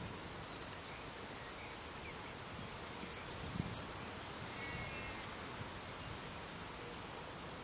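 Male yellowhammer singing one song, starting about two seconds in: a quick run of about ten short repeated notes, then one long held note to close.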